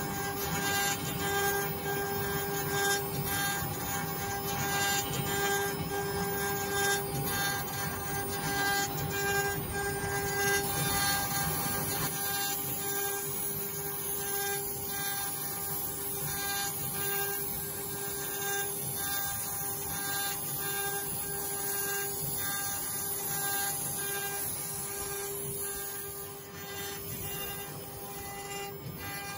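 CNC router spindle carving a wood block with a small bit: a steady high whine from the spindle over a rough, ticking cutting noise from the chips. The sound gets slightly quieter near the end.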